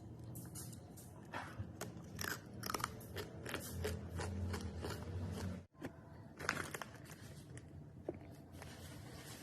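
Crunchy food being bitten and chewed: a string of crisp crunches, broken by a sudden cut a little past halfway, after which the crunching goes on.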